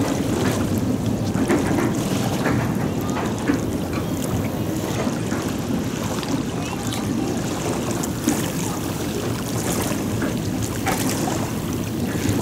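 Wind buffeting the microphone and small waves lapping at the river's edge: a steady rushing noise with scattered light splashes.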